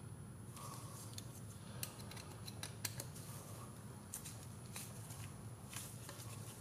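Faint, irregular small clicks and light scraping as a hex screwdriver snugs an M3 steel button-head screw into a captive nut on a carbon-fibre quadcopter frame.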